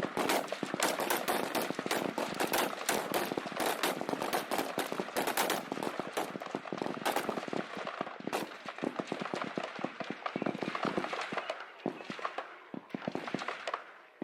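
A firing line of M16 rifles shooting many rapid, overlapping single shots, a near-continuous crackle of gunfire that thins out to scattered shots in the last couple of seconds.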